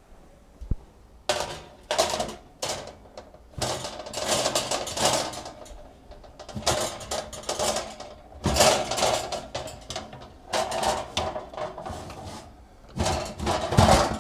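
A utensil scraping and clattering against a metal baking sheet in an open oven, in irregular bursts, as the roasting asparagus and garlic are worked loose from the pan.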